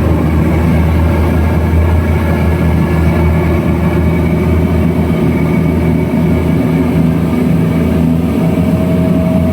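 Twin 250-horsepower speedboat engines running steadily, a loud, even low drone with no change in pitch.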